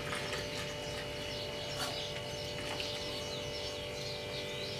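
Milk tea trickling from a steel saucepan through a tea strainer into a glass as the pour ends, then a couple of light clinks of the pan and strainer. A steady hum runs underneath, with birds chirping faintly.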